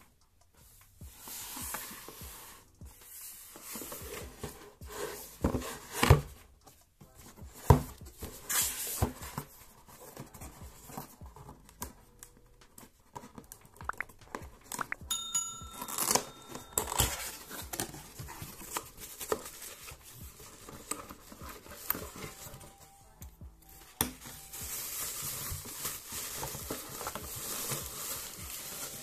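A cardboard box is handled and opened: tape on the end is slit and torn, with scrapes, taps and knocks of the cardboard. Near the end comes a steadier crinkling rustle of bubble wrap as the fan is pulled out.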